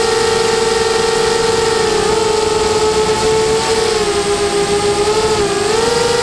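FPV quadcopter's brushless motors and propellers whining, heard from the craft's own onboard camera. The pitch holds steady, dips slightly about two and four seconds in, then rises near the end as the throttle changes, over a rush of air noise.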